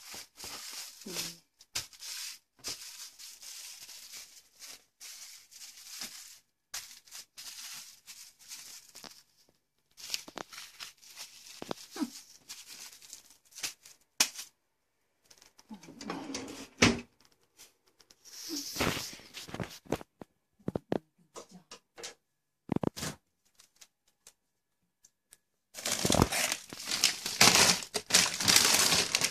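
Clear plastic film wrapped around a frozen fish fillet crinkling and rustling in stop-start bursts as it is handled. Near the end, louder, continuous crinkling of plastic freezer bags.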